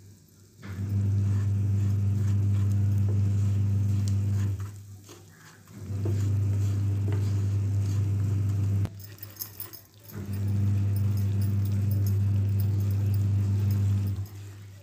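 A steady low hum with overtones, dropping out twice for a second or so. Under it is faint scraping and ticking from a wooden spatula stirring melting jaggery in a pan.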